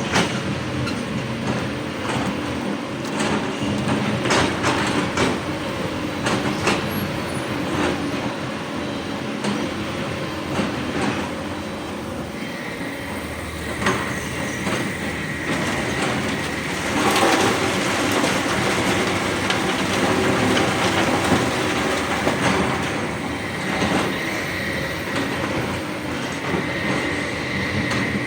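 Hydraulic excavator digging rock: the diesel engine runs under load with repeated metallic clanks and knocks of the bucket and steel on stone. About halfway through, a steady high-pitched whine joins in.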